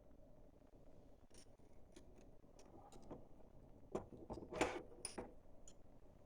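Small metal lathe parts and tools clicking and knocking against each other as they are handled for reassembly. The clicks are scattered, with a cluster of louder knocks about four to five seconds in.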